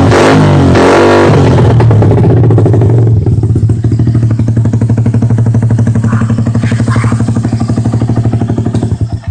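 Motorcycle with an AHM exhaust revving briefly, then settling into a steady, evenly pulsing idle that stops near the end.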